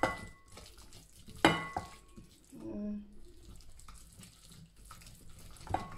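Hand squishing and stirring a wet chermoula of chopped herbs, spices and olive oil in a glass bowl. Sharp glass clinks with a brief ringing tone come at the start, about one and a half seconds in, and near the end.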